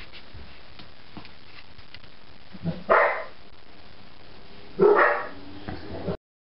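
Newborn standard poodle puppy crying out in two short, loud yelps about two seconds apart.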